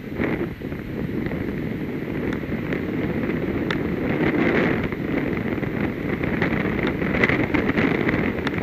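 Wind blowing across an outdoor webcam's microphone: a steady rushing rumble that swells and eases in gusts, with a few faint clicks.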